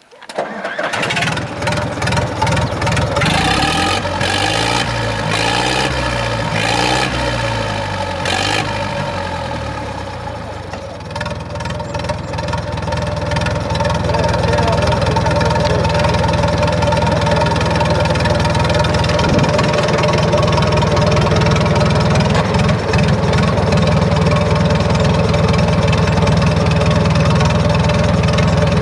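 UTB 650 tractor's diesel engine starting on a cold start: it catches right at the start and runs unevenly with a wavering pitch for about ten seconds. It then settles into a steady idle.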